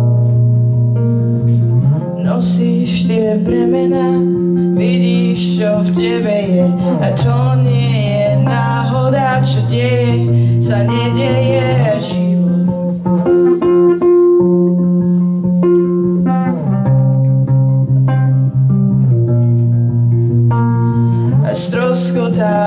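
A semi-hollow electric guitar playing sustained chords that change every two to three seconds. A woman sings over it in Slovak for the first half and again near the end.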